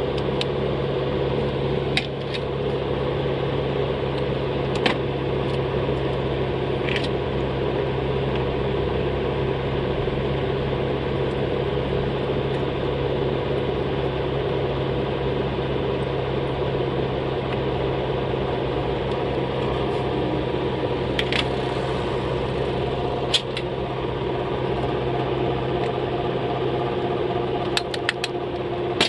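A small motor or fan hums steadily, with a few light clicks and taps scattered through it.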